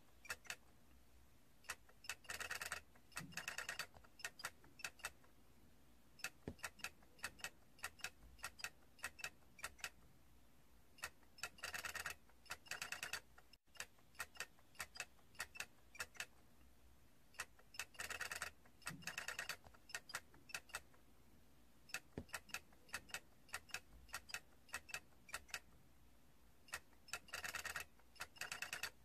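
Small plastic toy clicking: scattered sharp ticks, with four bursts of rapid clicking about a second long.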